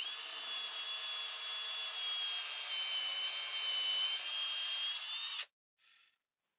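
Handheld power drill boring a hole into a wooden board: a steady high motor whine that dips slightly in pitch midway as the bit works through the wood, then stops abruptly after about five and a half seconds, with a brief faint noise just after.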